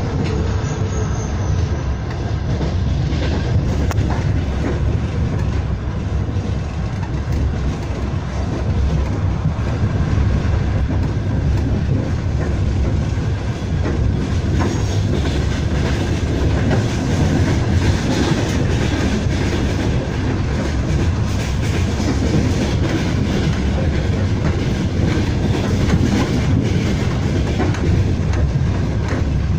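Steady rumble and clatter of train wheels running over rails, heard from on board, while a freight train of tank and gondola wagons passes close by on the next track.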